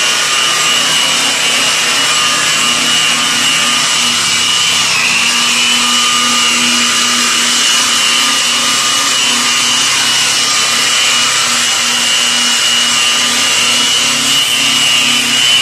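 Hand-held electric polisher running steadily with its round buffing pad rubbing against a Venetian-plaster wall, polishing the stucco to a shine: a steady high motor whine over a hiss, the whine dipping briefly in pitch about five seconds in.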